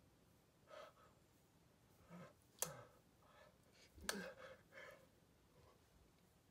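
Near silence broken by faint breaths and mouth noises from a man signing, with two sharp taps of his hands, one about two and a half seconds in and one about four seconds in.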